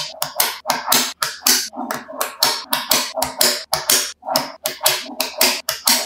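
Magnetic balls clicking sharply together as sheets of them are snapped into place, a quick run of clicks at about four to five a second.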